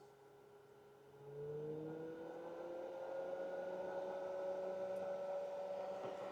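Thermec 25-litre 12V camping fridge's cooling-unit fan spinning up about a second in: its hum rises in pitch and gets much louder, then settles into a steady whir at high speed, the fan gone into overdrive as the fridge runs at its maximum setting.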